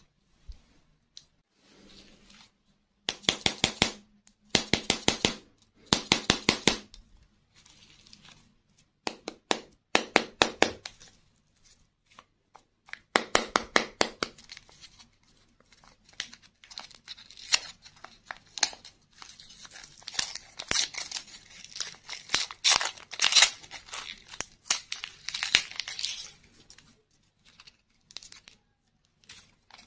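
A paper-and-foil candy wrapper being torn open and crinkled by hand, in short bursts of sharp crackling tears with brief pauses between them.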